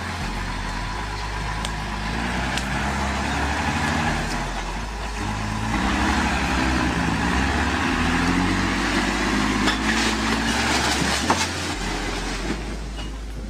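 Heavy truck engine running under load as the truck crosses a wooden plank bridge, with a rising rumble and clatter. Near the end come sharp cracks and a heavy crash as the truck and bridge go down in a cloud of dust.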